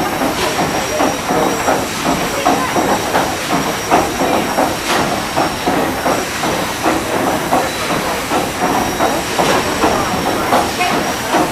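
Paddle steamer Waverley under way: a steady, rhythmic mechanical beat of its steam engine and paddles with a continuous hiss of steam and rushing water.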